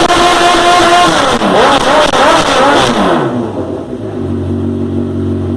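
Honda CB1000R inline-four running through an aftermarket Hurricane Evolution exhaust, very loud. It is held at high revs for about a second, drops, is blipped three or four more times, then settles to a steady idle.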